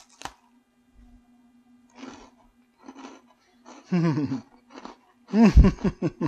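A very crunchy chocolate chip cookie bitten with a sharp crack just after the start, then chewed in scattered crunches close to the microphone. Loud 'mmm' hums of enjoyment come around the middle and near the end, over a faint steady low hum.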